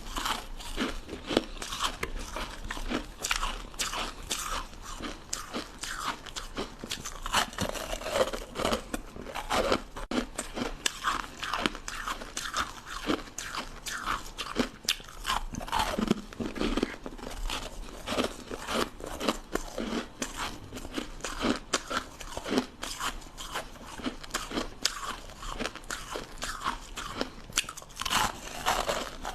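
Ice sticks being bitten and chewed: continuous crunching and cracking of ice, many crunches a second.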